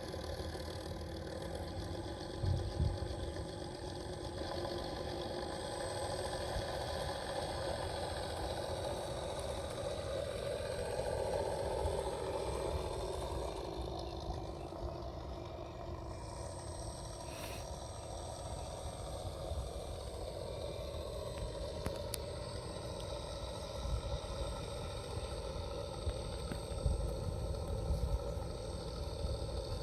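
Steady engine sound from a 1.6 m model's engine sound-effect unit, running on with a pitch that drifts slowly up and down, with a few low thumps.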